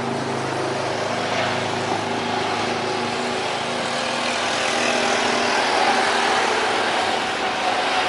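Jet airliner engines running: a steady rushing noise that grows a little louder, with a low hum that fades out about two-thirds of the way through.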